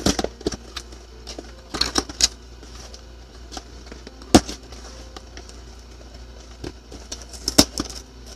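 Plastic parcel packaging being handled and opened: soft crackling with irregular sharp pops, the loudest about four seconds in and another strong one near the end.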